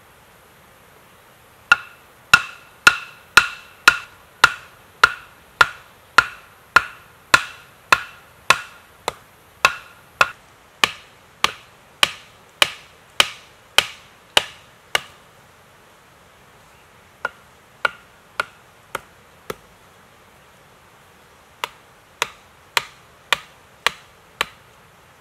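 Wood being struck over and over with a tool: sharp, ringing knocks a little under two a second. A long run of about two dozen strikes is followed by two shorter runs of five or six after brief pauses.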